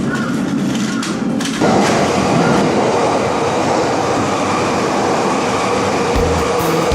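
Electric train passing close by: the noise of its wheels on the rails comes up suddenly about one and a half seconds in and stays loud and steady.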